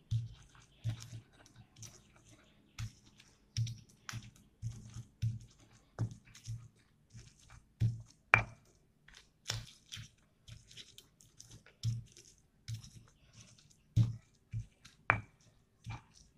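Stone pestle grinding fresh chilies into a wet spice paste on a flat stone mortar (cobek and ulekan), in repeated crunching, scraping strokes about two a second. A few sharper stone-on-stone clacks come through, one about eight seconds in and another near the end.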